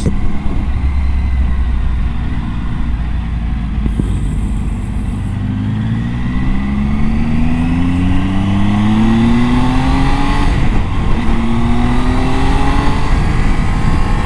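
Triumph Tiger 800 XCa's three-cylinder engine accelerating hard, its pitch rising steadily, then dipping at a gear change about ten and a half seconds in before rising again. Heavy wind rumble on the microphone runs beneath it.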